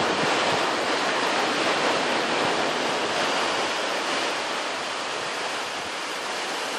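Steady rush of surf on a sandy beach, easing slightly near the end.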